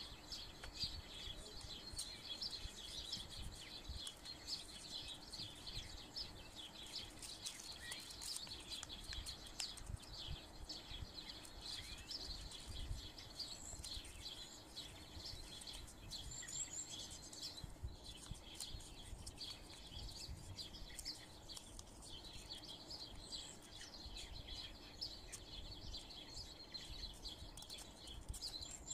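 Many small birds chirping steadily in the background, with faint rustling and creasing of paper being folded by hand.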